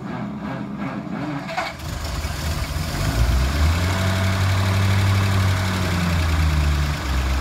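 A 1949 Packard's straight-eight engine is cranked, catches about two seconds in, and then settles into a steady run. The engine is being restarted after sitting for years with stale fuel.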